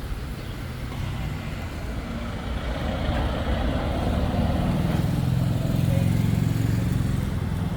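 A motor vehicle's engine running, growing louder for a few seconds from about four seconds in.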